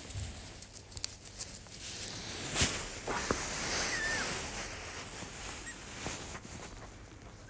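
An otter and a skunk scuffling in wood shavings, then the otter being picked up and handled: irregular rustling and small clicks, with one sharp knock about two and a half seconds in. A few faint, short high squeaks come a little after the knock.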